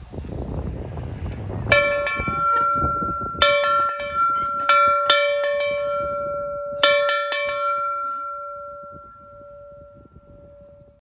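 A large metal bell struck about five times at uneven intervals. Its clear ringing tones hang on after each strike and die away slowly over the last few seconds. Wind rumble on the microphone comes before the first strike.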